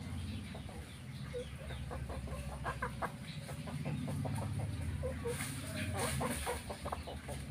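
Ayam kampung, Indonesian free-range village chickens, clucking in short runs of calls, over a steady low hum.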